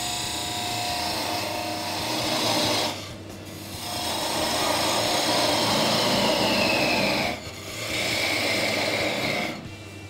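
Skew chisel cutting a spinning wooden spindle on a wood lathe: three passes of scraping cut, broken by short pauses about three and seven seconds in as the tool comes off the wood. A high whistling tone falls in pitch during the second pass and holds steady through the third.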